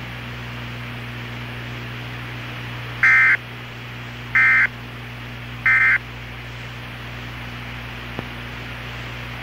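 NOAA Weather Radio SAME end-of-message signal: three short bursts of digital data tones, each about a third of a second long and a little over a second apart, over the broadcast's steady hiss and hum. The bursts mark the end of the alert message. Another burst begins at the very end.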